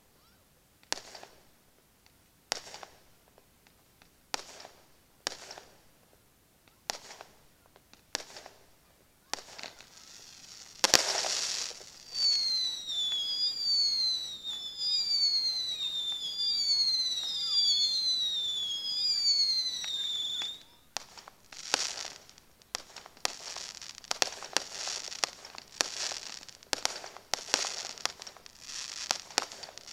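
Fireworks going off. First come sharp single bangs about once a second. Then a louder bang starts a run of repeated falling whistles lasting about eight seconds, and after that a dense stretch of crackling bursts.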